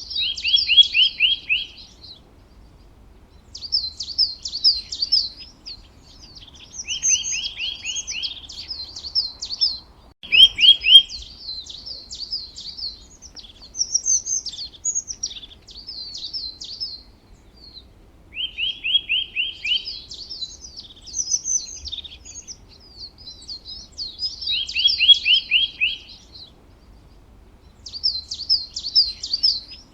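Songbirds singing: short phrases of rapid, high-pitched trilled notes, each lasting a second or two and repeated every few seconds with brief pauses between them.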